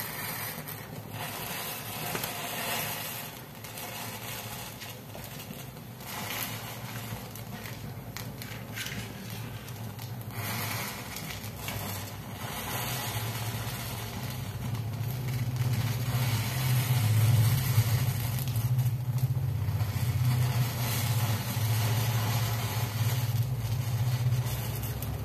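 Wooden matchsticks burning in a tall open flame, with dense crackling and a low rumble from the fire that grows stronger from about halfway through.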